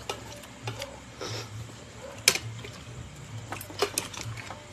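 Cutlery clicking and tapping against a plate during a meal, with one sharp click about two seconds in and a few more near the end, over a steady low hum.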